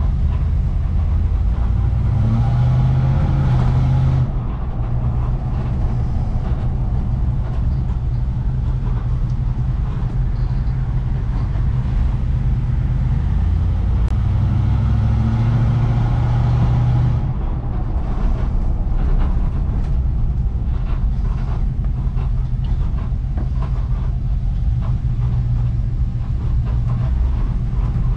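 Fuel-injected LT1 V8 engine of a restomodded panel truck running as the truck drives slowly, heard from inside the cab. It swells louder twice under throttle, about two seconds in and again around fifteen seconds in.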